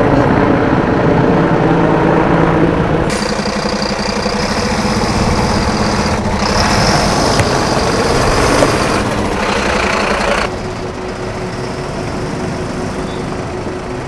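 Rotor noise from a Mil Mi-8-family firefighting helicopter for about three seconds, then a Mercedes-Benz fire engine's diesel engine running close by with an even, rapid pulse. About ten seconds in it gives way to a quieter, steady engine drone.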